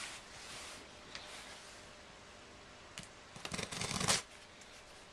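A shipping package being handled and opened: packaging rustling, with a few light clicks and a louder burst of crinkling a little past the middle.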